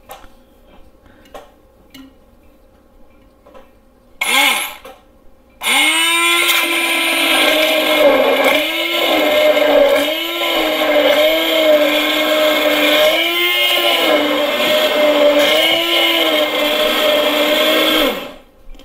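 Oster 250-watt immersion (stick) blender whipping raw eggs in a plastic measuring cup. A short spurt about four seconds in is followed by about twelve seconds of steady running, the motor's pitch dipping and recovering every second or so. It cuts off near the end.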